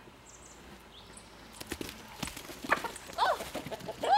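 A goat's hooves pounding and clattering on the dirt yard as she gallops about, starting about a second and a half in. A few short, high cries come in the second half, the loudest near the end.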